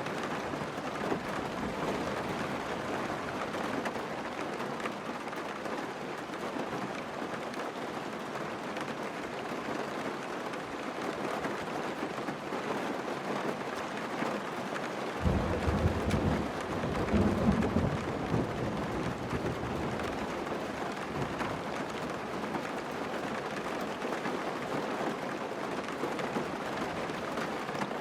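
Heavy monsoon rain falling steadily on a car, heard by its dashcam. About halfway through, a loud, low thunder rumble sets in suddenly and lasts around three seconds.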